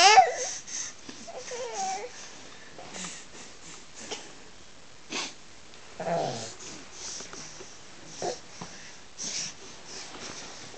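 Baby vocalising: a loud, high, wavering squeal at the very start, a short coo about two seconds in, a falling coo about six seconds in, and breathy wheezy sounds in between.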